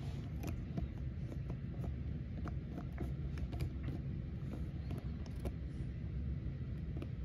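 Small irregular clicks and rubbing from a plastic toy three-wheeler being handled and turned by fingers, its wheels and body knocking lightly, over a steady low hum.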